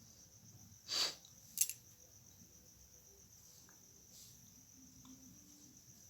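Crickets chirping in a steady, high, finely pulsed trill. A short burst of noise comes about a second in, and a sharp click half a second after it.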